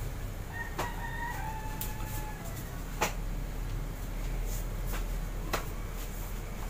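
One long bird call about half a second in, held for a couple of seconds and dropping in pitch at the end. Sharp taps follow about three and five and a half seconds in.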